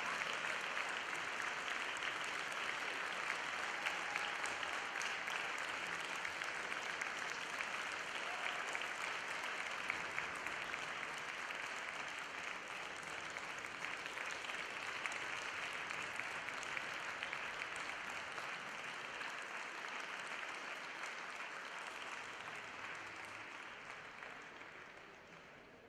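Arena audience applauding steadily, fading away over the last few seconds.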